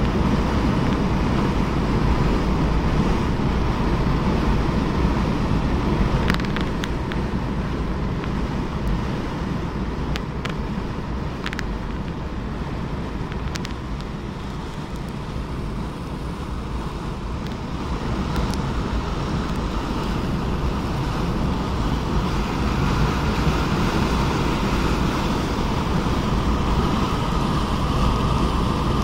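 Steady road and engine noise heard from inside a moving car on a paved highway, with some wind noise. It eases a little in the middle and rises again towards the end, with a few faint brief ticks in between.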